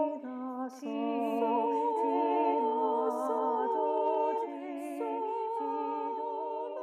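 Unaccompanied voices singing a canon in solfège, several parts overlapping on held notes with vibrato, with quick breaths between phrases. It grows quieter in the second half as the canon nears its close.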